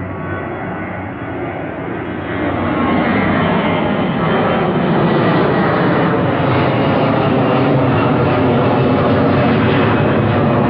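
Airliner's engines passing low overhead, a loud rushing engine noise that builds about two and a half seconds in and stays loud.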